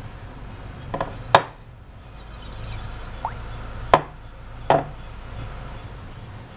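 The metal inner pot of an electric rice cooker, holding rice and water, being handled on a wooden table: sharp knocks about a second in and again near four and five seconds, with light rubbing between.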